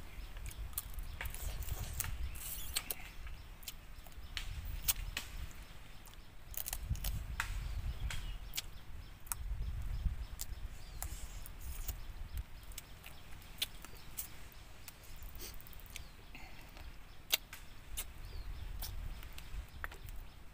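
Close-up eating sounds as food is eaten by hand: chewing with many short, sharp clicks and crunches, over a low rumble.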